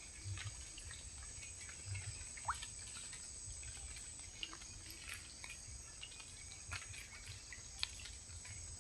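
Quiet waterside ambience: faint scattered drips and small ticks of water, over a steady thin high-pitched hum.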